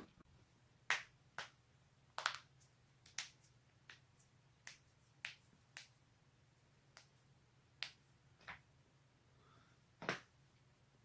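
Human joints cracking, as in neck and back cracking: a run of sharp pops and clicks at irregular intervals, some in quick pairs.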